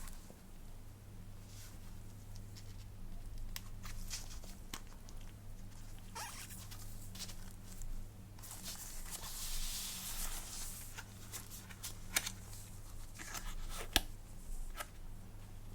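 Hands handling a smartphone box and its packaging: scattered light clicks and taps, and a few seconds of rustling, tearing-like noise past the middle. A steady low hum runs underneath.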